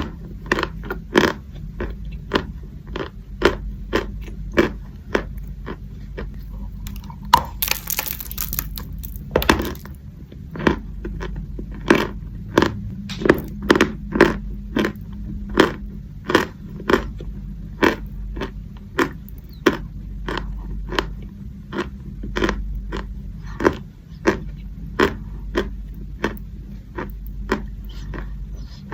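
Chalk being bitten and crunched close to the microphone: a steady run of sharp, dry crunches, about one or two a second, with a longer scraping rasp about eight seconds in.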